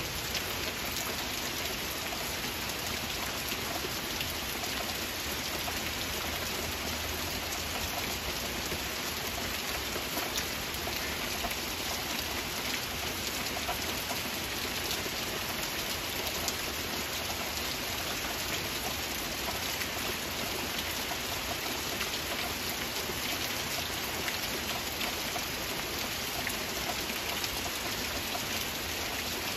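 Steady rain falling, an even hiss flecked with many small drop ticks.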